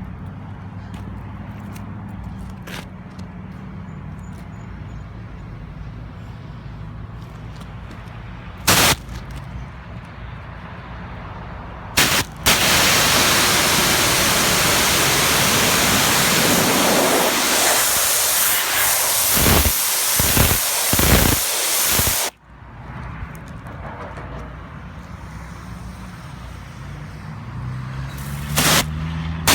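Pressure washer at work. A steady low motor hum runs throughout, with a couple of sharp knocks. About twelve seconds in, the loud hiss of the water jet blasting the surface starts, lasts about ten seconds and cuts off suddenly.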